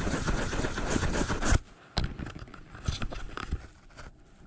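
Fingers rubbing and wiping an action camera's lens right on top of its microphone: a loud scraping rub for about a second and a half, then scattered knocks and clicks as the camera is handled.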